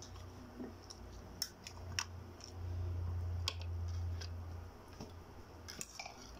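Scattered sharp clicks of wooden barbecue skewer sticks tapping and scraping against plastic plates and bowls as food is picked at, with a low hum that swells for about two seconds in the middle.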